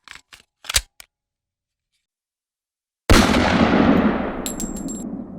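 Intro sound effects: a few short clicks, a pause, then a sudden loud gunshot-like blast about three seconds in that dies away over about two seconds.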